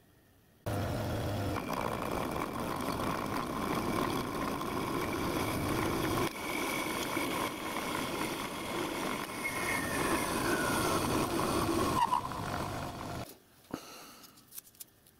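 Metal-working lathe switched on a little under a second in, its spindle and four-jaw chuck spinning as the tool turns a small metal part, with a steady whine and one tone that slides down in pitch near the end. It is switched off about two seconds before the end and runs down, leaving a few small clicks.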